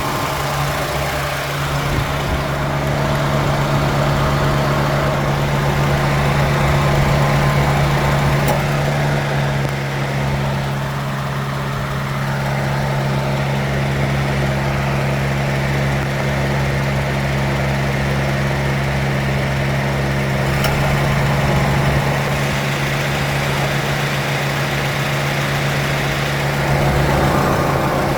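Maruti Zen engine idling steadily with its air-conditioning system running, a constant low hum with slight swells in loudness.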